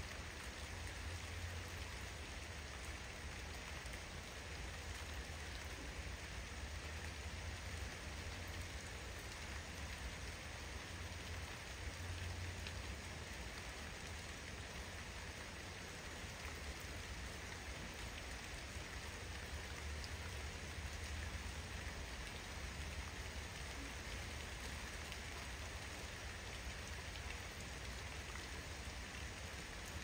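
Steady rain falling, with a steady low rumble underneath.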